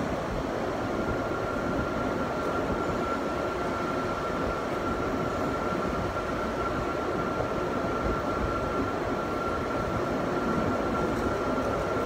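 Steady machinery noise with a thin, high, steady whine that sets in about a second in.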